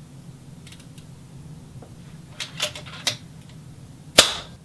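A few light mechanical clicks as a .25 calibre FX Impact PCP air rifle is cocked and loaded, then one sharp shot about four seconds in. The rifle is on its tuned setting, hammer spring turned down to just enough air, so the report is quieter and clean.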